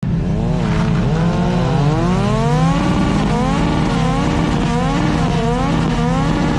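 Engine revving: the pitch climbs in one long rise, then goes into a run of quick blips, about one every 0.7 seconds, over a steady low drone.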